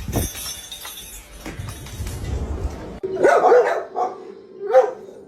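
A dog barking, a few short barks starting about three seconds in and another near the end.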